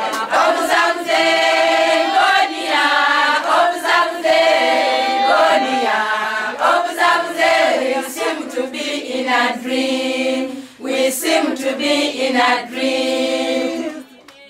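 A group of women singing together in chorus, in repeated phrases of held notes with short breaks between them, with hand claps now and then.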